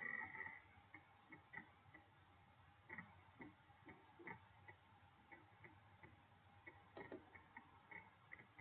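Faint, irregular ticks and clicks of a computer mouse: the scroll wheel turning and a button being pressed.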